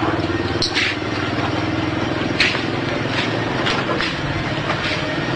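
A small engine running steadily, with a few short, sharp clicks or hisses over it.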